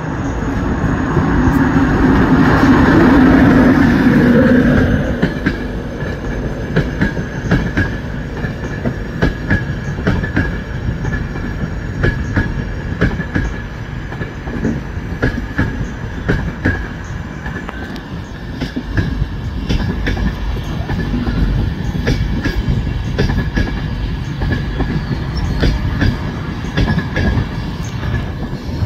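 LNER InterCity 225 train led by a Class 91 electric locomotive passing through. The locomotive's loud hum swells over the first few seconds, then the coaches roll by with a steady rumble and rapid clicking of wheels over rail joints and pointwork, over a thin steady high squeal.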